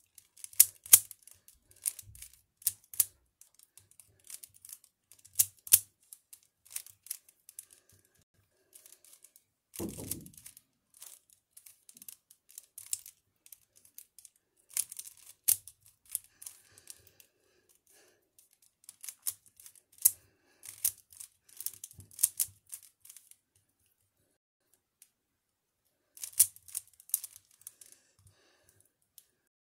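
Plastic clicking and clacking of a small 3x3 Rubik's cube as its layers are turned fast by hand, in quick bursts of turns with short pauses between. A dull thump about ten seconds in.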